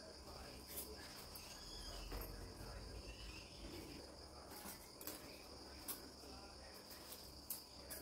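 Faint, steady high-pitched drone, with a few soft clicks, the sharpest near the end.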